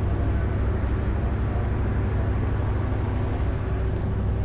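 A diesel passenger train standing at the platform with its engine idling: a steady low rumble with a steady hum over it.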